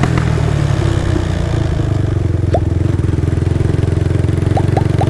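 Modified Honda CBX 250 Twister single-cylinder engine, bored out to 79 mm and running on ethanol, running steadily through its aftermarket exhaust with a fast, even pulse. The engine is in its break-in period.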